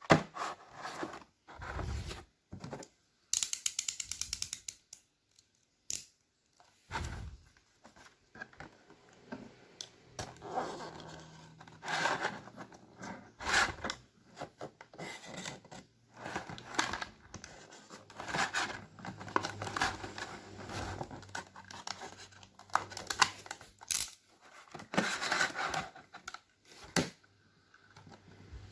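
Hot Wheels blister-card packaging being handled and opened by hand: irregular tearing, crinkling and scraping with scattered clicks, and a quick run of ticks a few seconds in.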